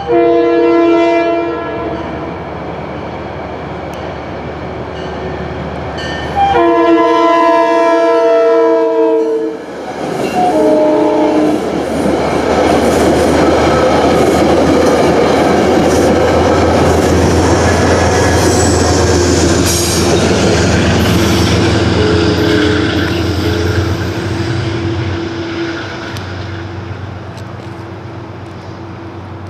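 Metro-North push-pull train, cab car leading with GE P32AC-DM locomotive 225 pushing at the rear, sounding its horn for the grade crossing: a blast of about a second and a half, a longer blast of about three seconds a few seconds later, then a short one. The train then rushes past with wheel clatter, loudest over a stretch of about a dozen seconds before it fades.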